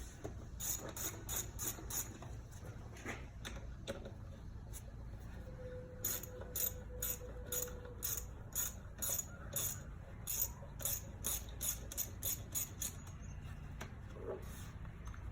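Small hand ratchet with an 8 mm socket clicking in rhythmic runs, about two or three clicks a second, as bolts are loosened. There is a short run near the start and a longer one from about six seconds to thirteen seconds in.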